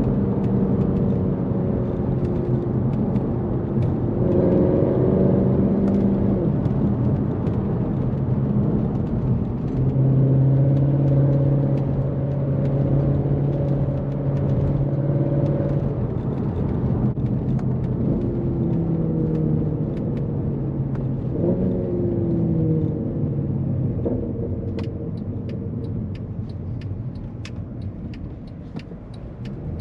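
2012 Mercedes C63 AMG's naturally aspirated 6.2-litre M156 V8 under way, its note holding steady for stretches and shifting in pitch several times as the revs change, then easing off and growing quieter near the end.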